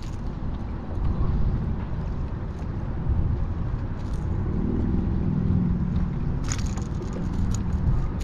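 Wind buffeting the microphone with a steady low rumble, a low hum swelling and fading in the middle. A few sharp clicks in the last couple of seconds as a crankbait's treble hooks are worked out of a small snook's mouth.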